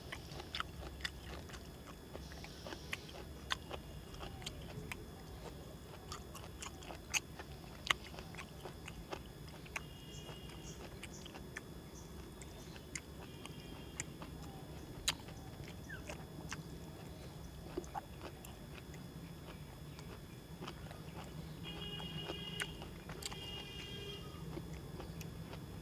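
A person eating rice by hand off a steel plate: fingers mixing rice with a stalky ash gourd leaf-and-stem curry, soft chewing, and scattered sharp clicks. Short repeated tones come in several times near the end.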